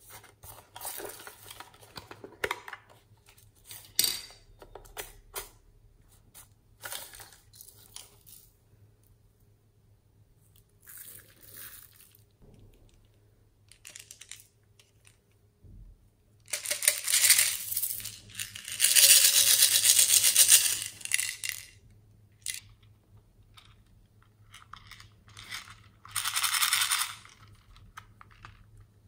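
Small hard-plastic Hello Kitty toys being handled and opened: scattered clicks, taps and clattering of plastic. There is a long, loud stretch of noise about two-thirds of the way through and a shorter one near the end.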